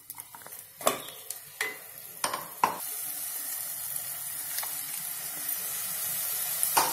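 A wooden spatula knocks and scrapes several times against a steel mixer jar as wet ground masala paste is scraped out into a hot kadhai. About three seconds in, a steady sizzle comes up as the paste and its thin liquid hit the hot oil, with one more knock near the end.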